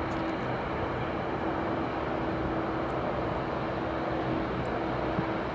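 Boeing 787-8 Dreamliner's twin turbofan engines running steadily as the airliner rolls slowly along the runway: an even rush of jet noise with a constant low hum under it.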